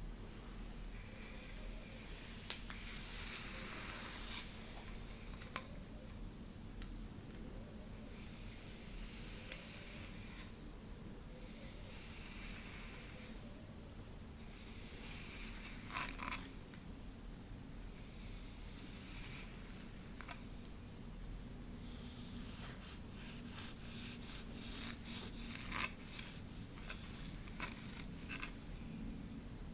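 Hair being stroked and combed close to the microphone: repeated slow rustling strokes, each a second or two long with short pauses, and a run of fine crackling strands about three quarters of the way through.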